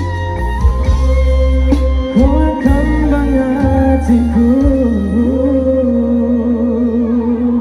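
Loud music over a sound system: a singing voice glides through long held notes over a heavy, steady bass.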